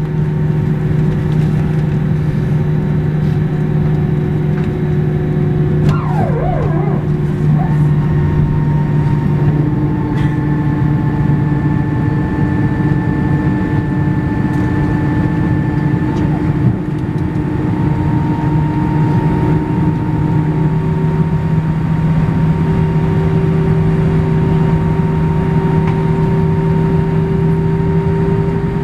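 Inside the cabin of an Airbus A319 taxiing: the steady drone of the jet engines at low power, with a low hum and several steady tones that shift in pitch a few times. About six seconds in, a brief wavering squeal rises and falls over it.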